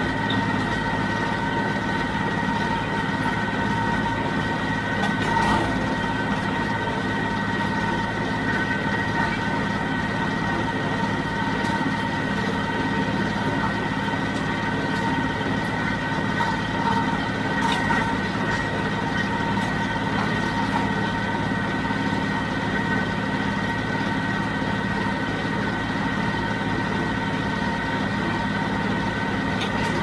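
John Deere 5055D diesel tractor running steadily, driving a John Deere 348 square baler. Several steady high whining tones sit over the engine's drone, with a faint click every few seconds.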